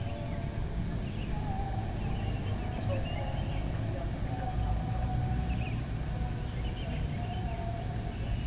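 Birds chirping in scattered short calls over a steady low rumble, with footsteps on a paved path.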